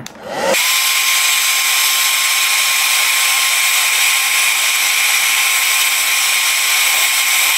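A Rusk hair dryer switched on about half a second in: its motor whine rises quickly to a steady pitch and holds there under a loud, even rush of blowing air.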